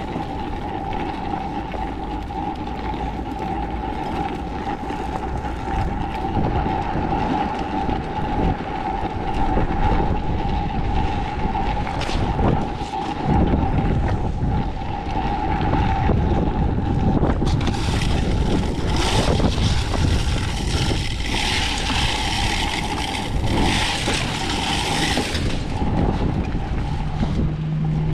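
Strong wind rumbling across the microphone, over a steady high whine that holds one pitch throughout. A louder hiss joins from a little past halfway until near the end.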